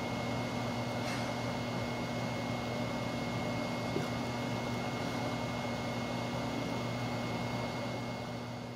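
Steady room tone: a low electrical hum and a faint high, even whine, with a couple of faint ticks.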